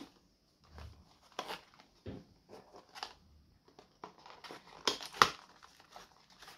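Cardboard packaging being handled: a small paperboard box slid and lifted out of a larger box, giving scattered brushing and scraping strokes, with a louder cluster of knocks and scrapes about five seconds in.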